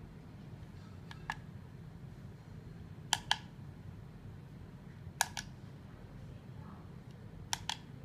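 Buttons on a small plastic remote controller pressed four times, about two seconds apart, each press a quick double click, over a low steady hum.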